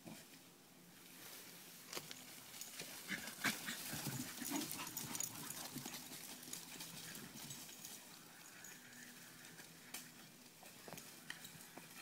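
Several dogs playing and chasing on a dry, leaf-strewn dirt track: scuffling paws and crunching leaves and twigs, busiest and loudest from about two to six seconds in as the dogs come close.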